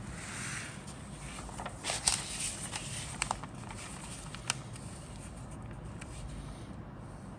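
Pages of a paper instruction booklet being handled and turned by hand: a rustle of paper, then a louder crackling rustle with a few sharp ticks about two to three seconds in, and one more tick a little later.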